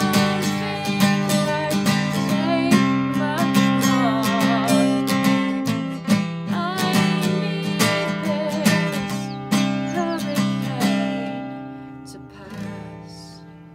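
Acoustic guitar strummed in a steady rhythm as the song's outro, ending with a final chord about twelve and a half seconds in that rings out and fades.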